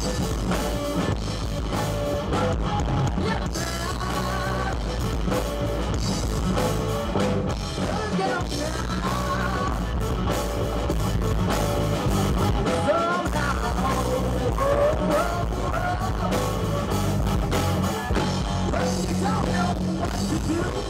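Live rock band playing, with guitar and drums over a steady bass, and a wavering melodic lead line on top.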